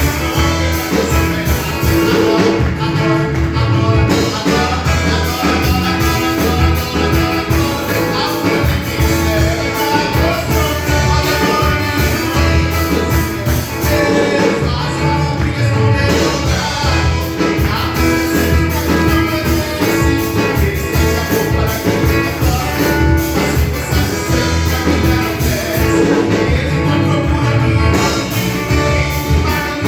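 Church worship band music with a steady drum beat, instruments and singing.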